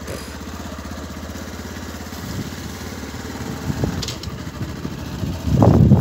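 Suzuki motorcycle engine running steadily while riding, with an even low pulsing, and a louder low rumble about five and a half seconds in.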